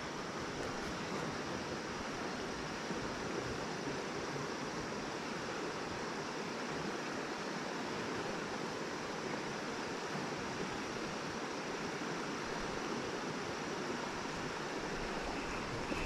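Creek water running steadily over rocks, an even rushing sound.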